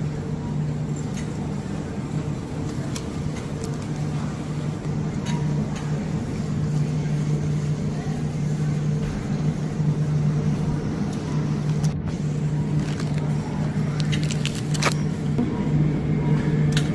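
Steady low hum of supermarket refrigerated display cases, with a few faint clicks and rattles about three-quarters of the way through.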